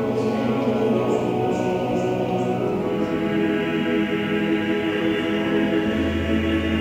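Church choir singing, holding long sustained chords. A deep bass note comes in about six seconds in.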